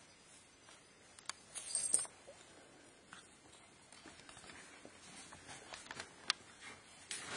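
Bearded Collie puppy's claws clicking and pattering on a wooden floor as it walks about, with a louder rustle about two seconds in and a sharp click near six seconds.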